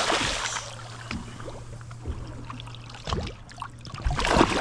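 Splash of a released cod dropping back into the sea, fading in the first half second. Then water sloshing and lapping at the boat's side over a steady low hum, with another burst of splashing near the end as a hand goes into the water by the hull.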